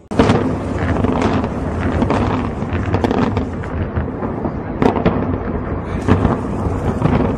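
Explosive demolition of a high-rise building: a rapid, irregular string of sharp bangs and cracks from the charges over a dense, continuous rumble of the collapse, starting abruptly.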